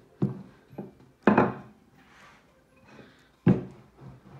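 Wooden rolling pin rolling out sweet pastry on a worktop, with a few sharp wooden knocks. The two loudest come about a second in and again about three and a half seconds in.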